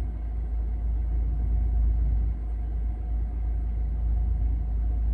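Steady low rumble inside a car cabin, with a faint steady hum above it.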